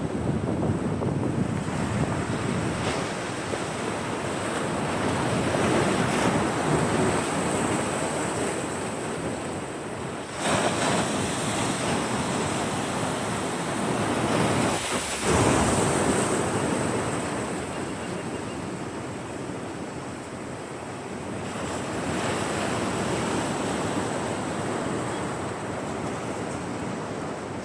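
Atlantic Ocean surf breaking and washing in, a steady rush that swells and eases, surging twice in the middle, with wind buffeting the microphone.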